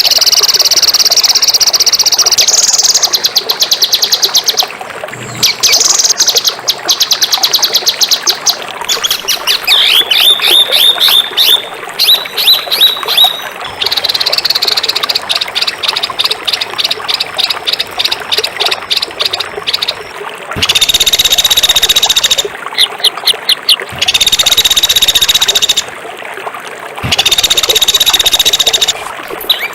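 Songbird singing harsh, fast song bursts: long buzzy phrases alternating with rapid trills of sharp repeated notes and some quick downward-sweeping notes, broken by short pauses.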